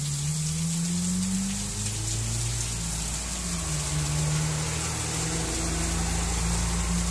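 Heavy rain falling steadily on the roof and the wet pavement. Under it, the low engine hum of a truck passing on the wet road, its pitch sliding up and down.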